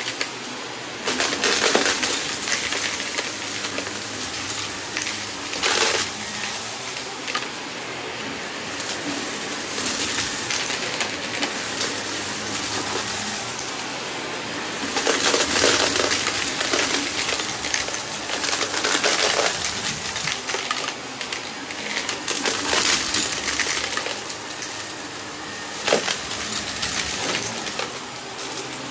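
Shark upright vacuum running on a shag rug, with small bits of debris rattling and crunching as they are sucked up the nozzle, louder in several bursts.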